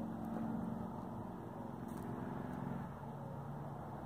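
Low, steady rumble of a motor vehicle engine running, with its pitch shifting slightly about three seconds in.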